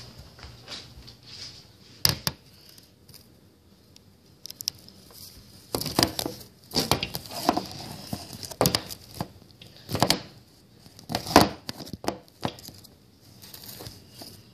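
Handling noise from a handheld camera being moved about and rubbed against clothing and skin: irregular rustling and scraping with sharp knocks, more of them and louder in the second half.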